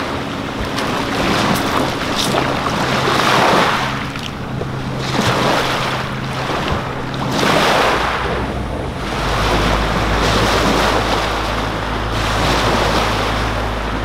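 Small lake waves washing onto the shore in surges every couple of seconds, with wind on the microphone, over the steady low hum of a fishing boat's outboard motor pulling away across the water. The hum shifts lower about nine seconds in.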